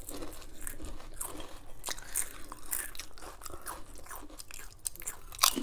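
Lay's potato chips crunching as they are bitten and chewed: a quick, irregular run of crisp cracks, with one louder crack near the end.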